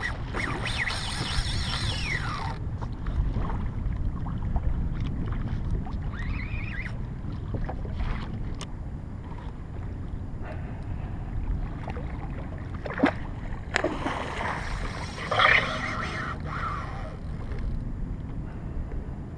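Wind buffeting the microphone and water sloshing against a fishing kayak's hull as a hooked hammerhead shark fights beside it, with a burst of splashing near the start, a sharp knock, and a louder short burst late on.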